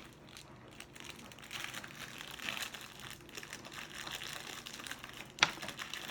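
Plastic candy packaging crinkling as it is handled, with a sharp tap about five seconds in.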